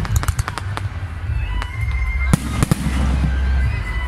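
Aerial fireworks bursting: a quick string of crackling bangs in the first second, then two louder booms about two and a half seconds in, over a steady low rumble.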